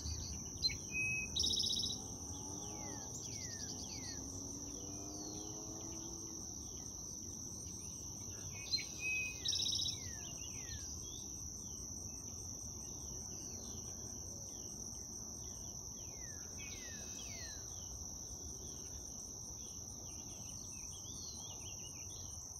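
A steady high insect trill, with many short down-slurred bird calls repeating throughout. A songbird sings two louder song phrases, about a second in and again about nine seconds in.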